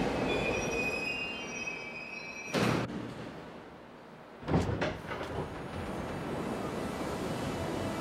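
Subway train pulling in and braking, with high brake squeal over its fading running noise, then a short hiss. About four and a half seconds in comes a sharp bang with a few rattles, followed by the steady hum of the train.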